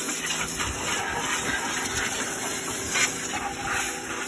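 Pressure washer jet hissing steadily as it blasts water onto the bare metal of a car's engine bay and inner fender, with a steady hum underneath.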